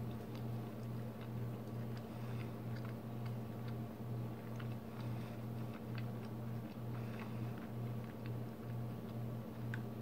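A man chewing a mouthful of pike ceviche: a soft, even chewing rhythm about twice a second with small clicks, over a steady low hum.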